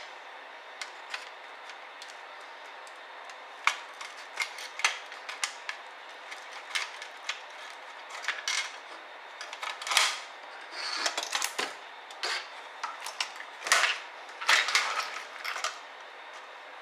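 Irregular clicks, taps and short scrapes of small plastic and metal laptop parts being handled and set down during ThinkPad T60p disassembly, sparse at first and busier and louder from about halfway through.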